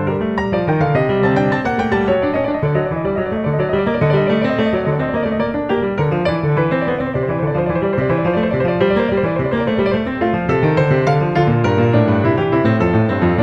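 Background music: a continuous piano piece with steadily moving melody and chords.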